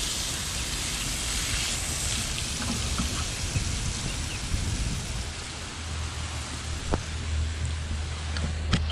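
Water spraying steadily onto garden soil as a freshly seeded wildflower bed is watered in, a rain-like hiss. A low steady hum comes in about six seconds in, with a couple of sharp clicks near the end.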